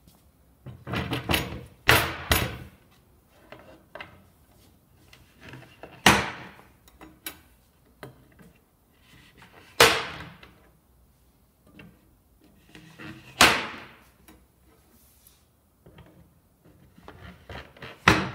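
A plywood lid is set down on a wooden crate with a few knocks. Then come four sharp snaps, about four seconds apart, as spring steel wire clips are pushed into the machined slots to lock the lid on.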